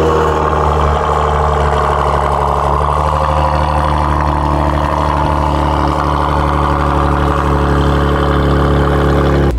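2020 Kia Stinger GT2's 3.3-litre twin-turbo V6 idling steadily through its quad exhaust, settling just after a remote start.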